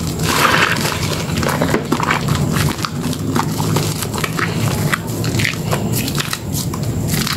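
Hands squeezing and kneading thick soap lather in a stainless steel bowl: wet squelching with a dense, continuous crackle, a little louder just after the start.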